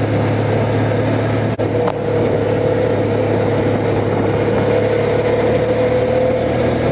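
Honda Crosstourer's V4 engine running steadily at an even road speed, with a steady hum and a constant whine under wind and road noise.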